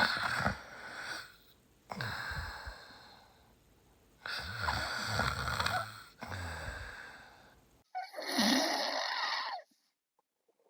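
A person snoring: about five long snores in a row, each a second or two long, with short pauses between them. The last one cuts off abruptly near the end.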